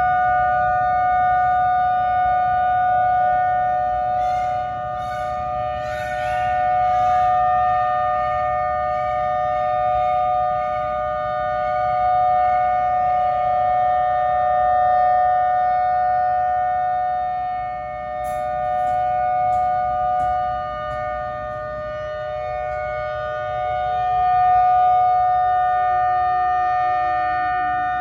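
Outdoor tornado warning siren sounding a steady two-note tone, swelling and fading every few seconds as it rotates. Peacocks cry out over it in quick repeated calls, about four seconds in and again around eighteen seconds.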